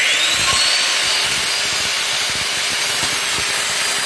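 Handheld circular saw running at full speed and cutting lengthwise through a wooden board: a loud, steady saw noise.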